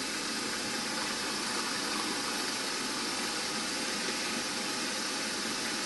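Steady whirr of a drilling machine's spindle running while a 3.2 mm drill bit cuts into a metal shaft, drilling the tapping hole for an M4 thread.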